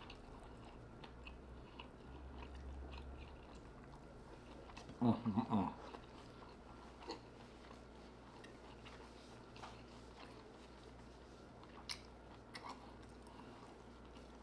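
A person chewing seafood close to the microphone, with small wet mouth clicks and smacks. About five seconds in comes a short hummed "mmm" of enjoyment.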